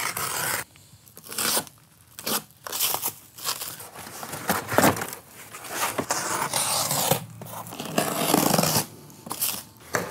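Plastic wrap and cardboard packaging being torn and pulled off a door frame, in irregular bursts of ripping, crinkling and rustling.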